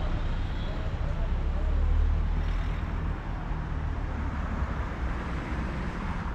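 Street traffic: a motor vehicle's engine running close by with a low rumble, loudest about two seconds in and then fading.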